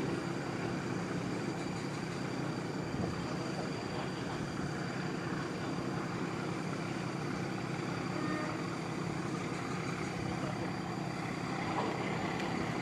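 Steady low rumble of distant heavy engines, with a faint steady high tone above it.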